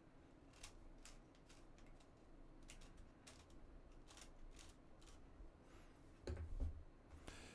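Faint, irregular clicks and ticks from the plastic parts of a 3D-printed Eye of Agamotto prop as its rings are turned by hand to work the eye mechanism. There is a soft thump about six seconds in.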